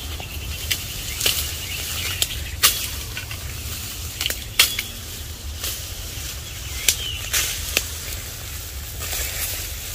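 Tall reed-like grass stalks and leaves rustling and snapping as they are grabbed, bent and broken off by hand, with a sharp crack every second or two over a low steady rumble.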